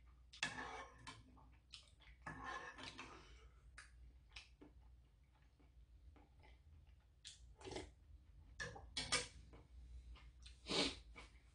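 A person eating soup with a metal spoon: scraping and clinking the spoon in the pot, slurping and chewing, heard as several short bursts with a few light clicks between them.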